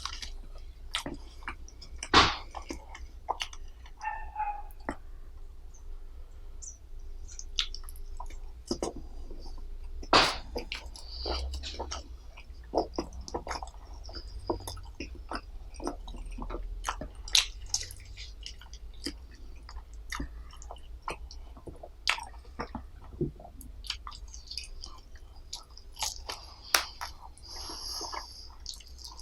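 Close-miked chewing and wet mouth sounds of a person eating, with irregular sharp smacks and clicks; two louder ones come about two seconds and about ten seconds in.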